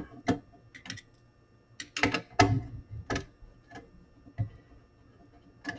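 Light clicks and taps, about nine of them at uneven spacing, from the metal parts and wiring of an opened 8-track player's tape mechanism being handled.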